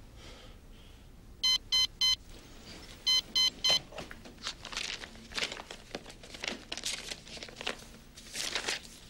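Digital alarm clock beeping: two sets of three short beeps, the second set about a second and a half after the first. Then paper rustling as the pages of a notebook are leafed through.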